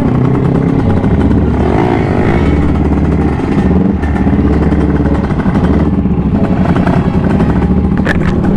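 Kawasaki Ninja sport bike's engine running as it pulls away and rides slowly, the pitch rising and falling a few times with the throttle.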